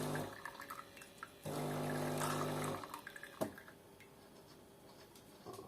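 DeLonghi coffee machine running its rinse cycle: the pump hums with water running through the spout, stopping just after the start and running again for about a second, followed by a single click.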